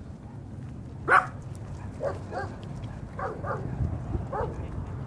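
Dog barking: one loud bark about a second in, followed by several shorter yips.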